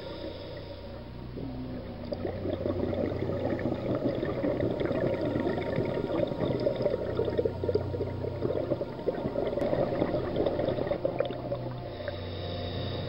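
Underwater bubbling and crackle of a scuba diver's exhaled breath venting from the regulator. It builds about two seconds in and eases near the end.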